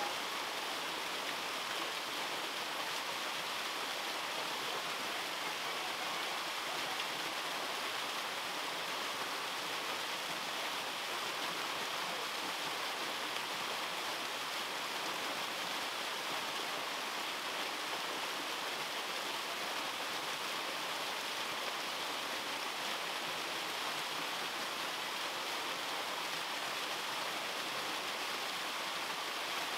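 Small mountain-stream waterfall falling in two cascades over rock: a steady, even rush of splashing water.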